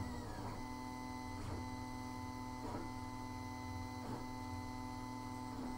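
Wanhao Duplicator i3 Plus 3D printer running its first print layer: a steady hum and whine from its motors and fans, with a faint tick about every second and a half.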